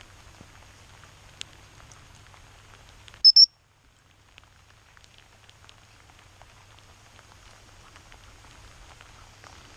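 Steady rain pattering, with scattered light ticks of drops. About three seconds in come two short, very loud, shrill high-pitched tones in quick succession.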